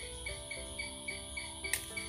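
Crickets chirping in an even rhythm, about four chirps a second, over a steady high insect trill, with soft background music of slowly changing held notes. A single sharp click about three-quarters of the way through.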